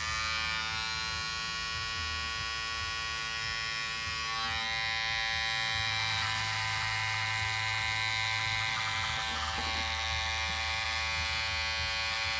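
Electric hair clipper switched on with a sudden start, then running with a steady buzz as it is pushed through a long, thick beard.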